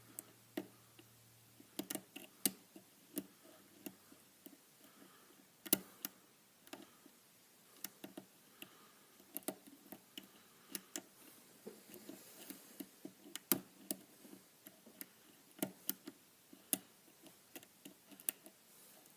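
Small, sharp, irregular clicks of a hook pick working the pins of a pin-tumbler challenge lock under tension, a few a second, as pins set and drop.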